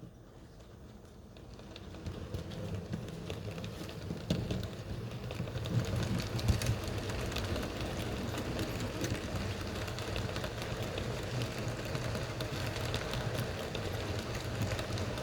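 H0-scale model train, a Roco DB class 01.10 locomotive hauling passenger coaches, running on model track: a steady electric-motor hum with many small wheel and rail clicks. It grows louder over the first few seconds as the train pulls out, then runs evenly.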